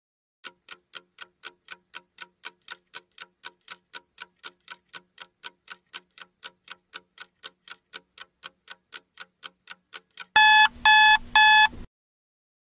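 Quiz countdown-timer sound effect: a clock ticking about four times a second for some ten seconds, then three loud electronic alarm beeps as the timer reaches zero, signalling that time is up.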